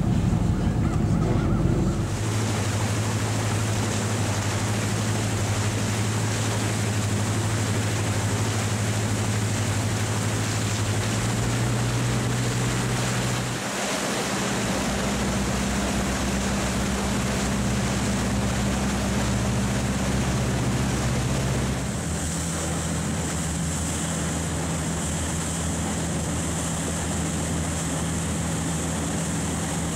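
A boat's engine running with a steady low hum, over a constant rush of wind and water. The hum's tone changes abruptly a few times.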